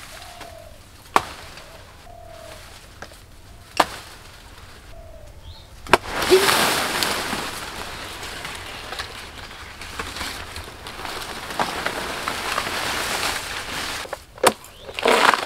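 A blade chopping into a banana tree trunk, three sharp single strikes a couple of seconds apart, while a dove coos softly. About six seconds in, a loud, long stretch of rustling noise begins and runs for about eight seconds, followed near the end by another quick run of chops.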